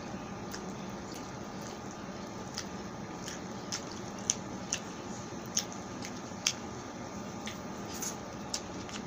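Eating pork sisig and rice by hand: about a dozen short, sharp, wet clicks and squishes of chewing and mouth sounds, loudest around the middle, over a steady background hiss.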